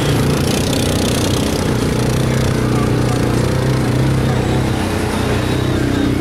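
ATV engines running steadily under throttle as the quads push through deep muddy creek water, with water splashing around the wheels.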